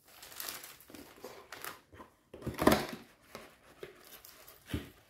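Cardboard box being opened by hand: scraping of the lid and flaps and rustling of crinkled paper packing inside, with the loudest rustle about halfway through.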